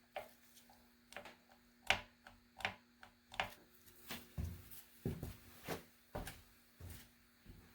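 Light clicks and knocks of hand work with metal tools and engine parts, about one every half to three-quarters of a second, with a few duller thuds in the middle. A faint steady hum runs underneath.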